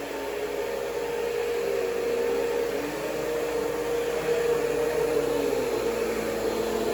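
Vacuum cleaner running steadily with a constant motor whine, fainter tones beneath it drifting up and down as it is pulled backwards across the floor.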